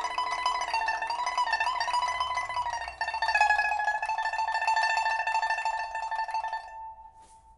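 A 1999 Man Ruixing pipa of old huangtan rosewood, freshly fitted with a new soundboard and frets, playing a melody with rapidly repeated plucks on sustained notes and bending, wavering pitches. The playing stops near the end and a last note rings on faintly.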